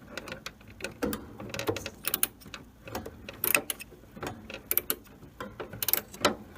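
Irregular metallic clicks and clanks of a hand tool and metal parts as the microwave's high-voltage transformer is unbolted and pulled from the chassis.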